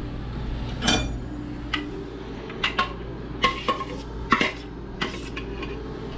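A metal utensil clinking and knocking irregularly against a black cast-iron pot as cut onions are dumped in and worked around, about a dozen sharp strikes.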